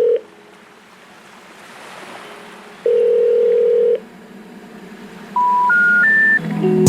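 Telephone ringback tone: a steady low beep of about a second, heard twice with a hiss between. Near the end come three short tones stepping up in pitch, the special information tone that signals the call cannot be completed.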